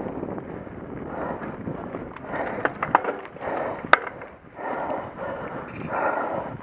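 A mountain biker breathing hard in a steady rhythm on a slow uphill climb: one loud breath about every second. A few sharp clicks from the bike come around three and four seconds in.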